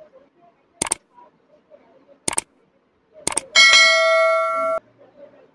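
Subscribe-button overlay sound effect: three mouse clicks over about two and a half seconds, then a bright bell ding that rings for just over a second and cuts off abruptly.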